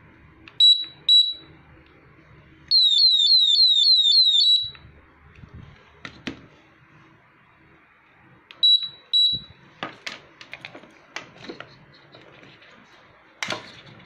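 HeyShow WSD007 watch security display stand beeping and alarming: two short high beeps about half a second in, then the alarm sounds loudly for about two seconds as a fast run of about seven falling chirps and cuts off. Two more short beeps follow after a few seconds, then sharp clicks of the plastic stand and watch being handled.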